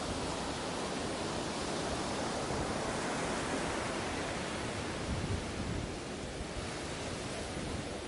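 Ocean waves breaking and washing on a beach: a steady rushing surf that eases off slightly about six seconds in.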